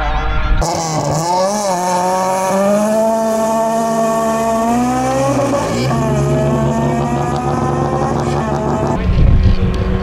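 Race car engine, a Honda Civic hatchback, revving hard at speed. Its pitch climbs and drops through gear changes, with dips about a second and a half in and again near six seconds. Near the end a second car's engine takes over, lower in pitch.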